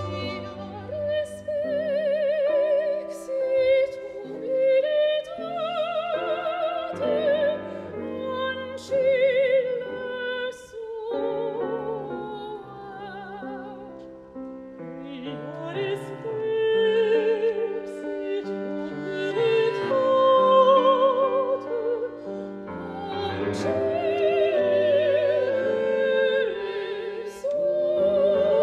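Two female classical soloists singing a duet with wide vibrato over a string orchestra.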